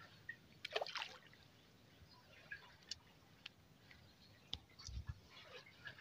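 Faint water sloshing and lapping against a small fishing boat, with scattered small ticks and knocks; a short splash about a second in and a low thump about five seconds in.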